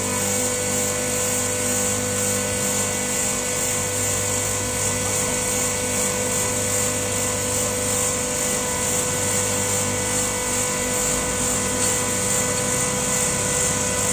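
Motor-driven cable hoist running steadily, a constant mechanical hum with a high whine, as it hauls the gilded tower ball and cross shaft up the inclined cable.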